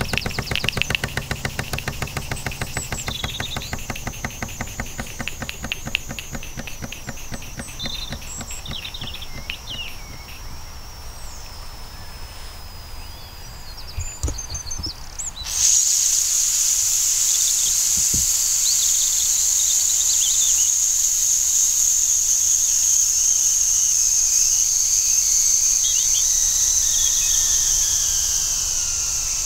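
Mamod SE2 model steam engine's small cylinder chuffing fast and evenly, slowing and fading over the first half. About halfway, after a click or two at the boiler's top fittings, steam vents from the brass boiler with a loud, high, steady whistling hiss that sinks slowly in pitch as the pressure falls.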